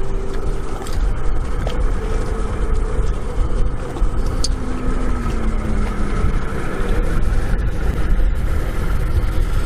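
Wind buffeting the microphone on an open sailboat deck: a steady, rough low rumble. A faint hum underneath dips in pitch about five seconds in.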